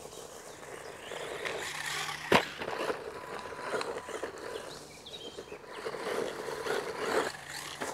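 Small electric RC monster truck, an MJX Hyper Go H16E with a 390 brushed motor, driving over dirt and gravel: tyres crunching and a thin steady motor whine, rising and falling as it moves. One sharp knock a little over two seconds in.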